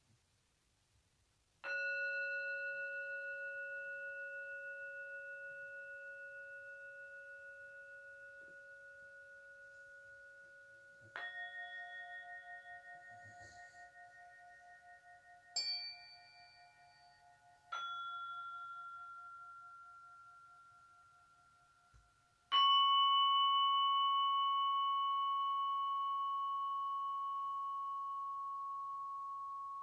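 Struck metal sound-healing instruments: five bell-like tones at different pitches, each ringing on and fading slowly with a gentle wavering. The fourth strike dies away quickly, and the last and loudest one rings on to the end.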